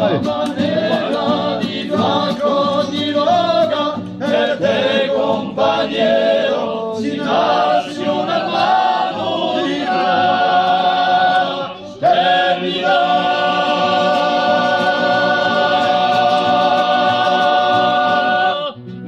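Group of men singing a Corsican song together in close harmony. The song closes on a long held chord that breaks off near the end.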